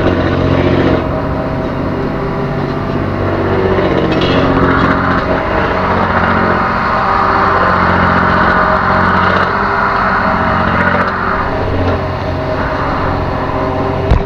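Fishing boat's engine running steadily with a low, even drone. A broad hiss swells over it from about five to eleven seconds in.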